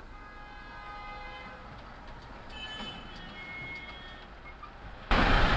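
Mahindra XUV700's front brakes squealing as it comes to a stop: a pitched squeal with several tones for about a second and a half, then another higher squeal. About five seconds in, the sound jumps suddenly much louder. The owner has heard this squeal since the front brake pads were replaced.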